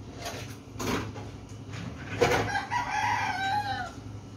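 A drawn-out animal call starting a little after two seconds in: one long cry that wavers in pitch and falls away after about a second and a half.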